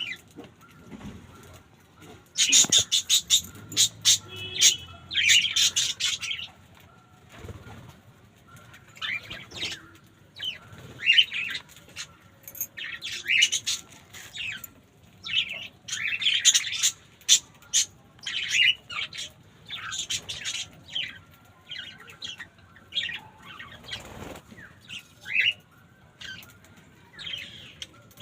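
Small birds chirping in quick, high-pitched bursts that come in clusters again and again.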